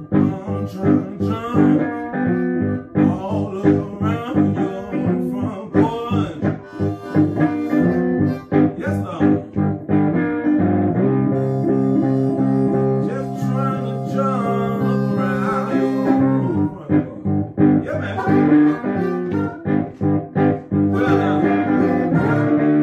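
Electric guitar and amplified blues harmonica, played live into a microphone, jamming together in a blues style, with long held notes about the middle.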